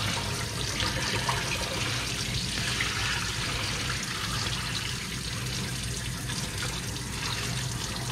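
Water running steadily and splashing into a sink as sushi rice is rinsed in a pot with cold tap water, the milky starch water being drained off.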